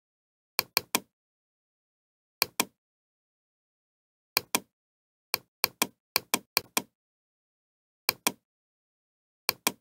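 Computer mouse button clicking, about eighteen sharp clicks, mostly in quick pairs like double-clicks, with dead silence between.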